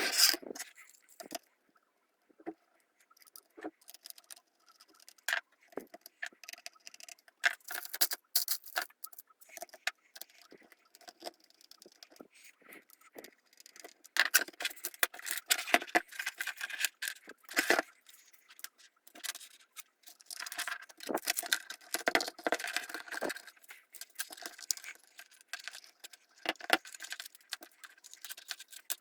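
Small hard parts being handled: scattered clicks, taps and light rattles, sparse at first and busier in the second half.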